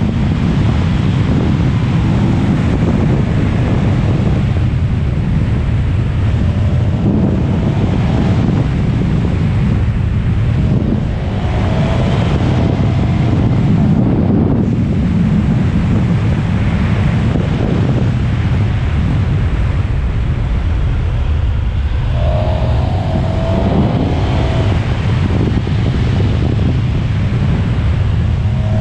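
Heavy, steady wind rushing over the microphone of a motorcycle in motion, with the KTM 1290 Super Adventure's V-twin engine running beneath it.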